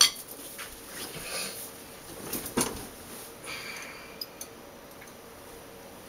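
Scattered knocks and light clinks of a drummer settling in at a drum kit and picking up drumsticks, with a sharp click at the very start and a louder knock about two and a half seconds in. Quiet room tone for the last couple of seconds.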